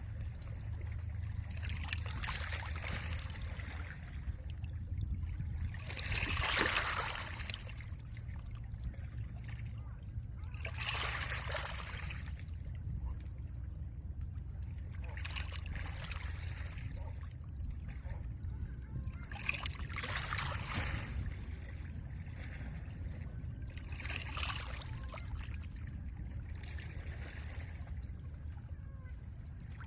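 Small lake waves washing against a pebble shore, one wash swelling and falling away about every four to five seconds, over a steady low rumble.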